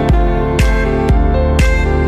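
Background music with a steady beat, about two beats a second, over sustained instrumental notes.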